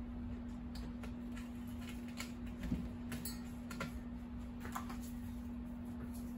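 Scattered light clicks and ticks as cut electric guitar strings are pulled from the tuning posts and handled, with one soft knock a little under halfway, over a steady low hum.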